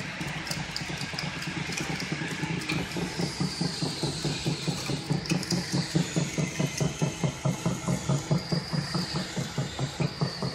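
Savema friction feeder and belt conveyor running as they feed plastic cards, with a regular pulsing about four times a second that grows stronger a few seconds in. A faint high whine comes and goes over it.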